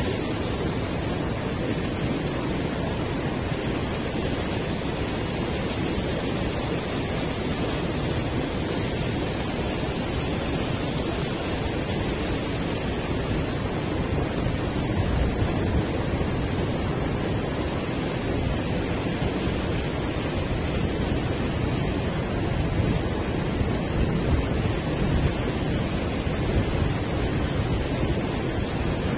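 Steady rush of river water pouring over a concrete weir and churning below it.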